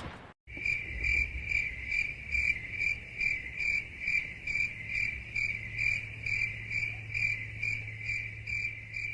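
Field crickets chirping in an even rhythm, about two chirps a second, over a faint steady low hum, starting about half a second in. This is the stock "crickets" meme sound effect for an awkward silence.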